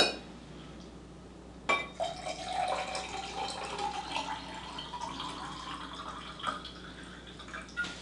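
Moscato wine poured from a bottle into a tall glass, after two short clinks in the first two seconds. The pour runs steadily with a tone that rises slowly in pitch as the glass fills.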